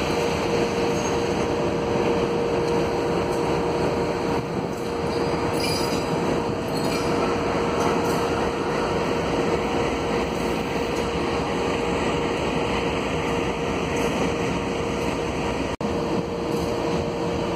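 Diesel freight locomotives and wagons moving past at close range. The engines run with a steady rumble under a thin, steady high tone.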